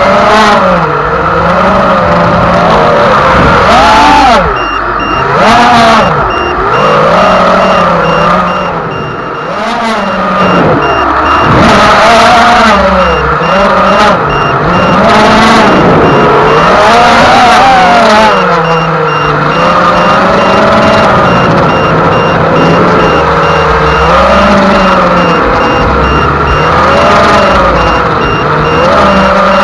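Radio-controlled racing boat motor running hard, its pitch swinging up and down every second or two.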